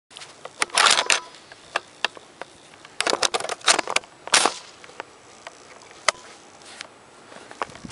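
Handling noise from an M1 Garand with a camera taped to it: bunches of rustling and sharp clicks as gloved hands work the rifle, then a few scattered single clicks.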